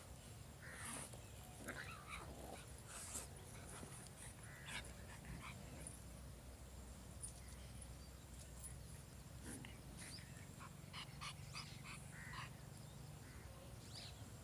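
Pug puppy giving faint, short yips and whimpers now and then while play-fighting with a kitten.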